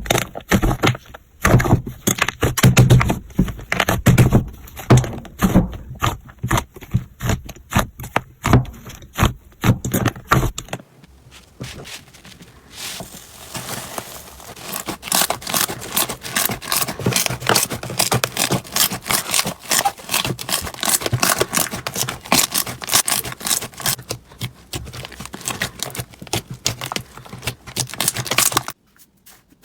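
Slime being squeezed and poked by hand, giving rapid wet pops and crackles with heavier thumps. After a short break about eleven seconds in, a second slime crackles more finely and densely, then stops abruptly near the end.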